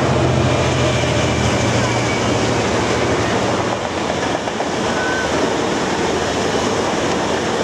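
Two Westland Lynx helicopters in flight: a steady rotor and turbine noise with a low flutter. A low steady hum fades out about three and a half seconds in.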